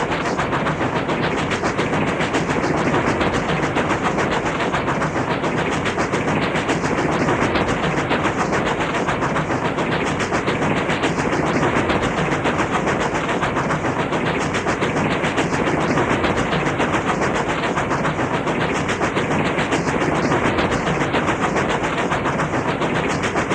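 Train moving along the track: a steady running noise with a fast, unbroken clatter of wheels on the rails.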